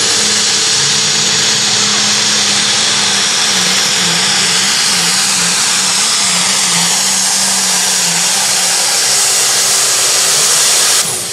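International Harvester Limited Pro Stock pulling tractor's turbocharged diesel at full throttle under sled load, a loud, hard-running engine with a high turbo whine. Its pitch dips and recovers several times mid-pull, and the sound drops off sharply near the end.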